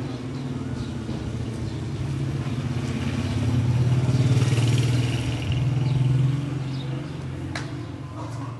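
A motor vehicle's engine running, growing louder to a peak about four to five seconds in and then fading away, as of a vehicle passing on the street.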